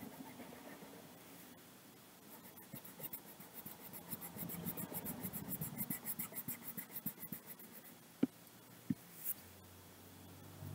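Colouring on paper: a colouring tool scratches in quick, even back-and-forth strokes for several seconds, followed by two light taps near the end.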